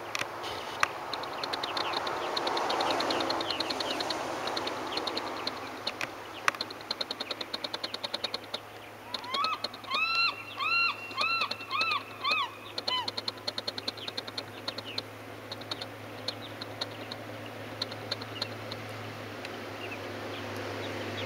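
Birds chirping: a run of rapid, clicky chirps, and about halfway through a series of six rising-and-falling calls at about two a second. Under them runs a low, steady drone of the floatplane's engine that swells near the end as the plane lands.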